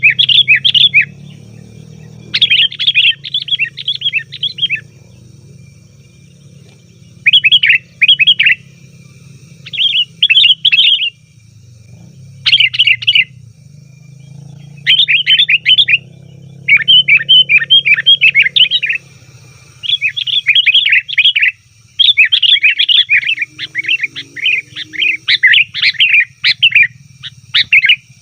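Sooty-headed bulbul (kutilang) giving noisy, rapid chattering calls in repeated bouts of one to three seconds, with short pauses between, over a steady low hum.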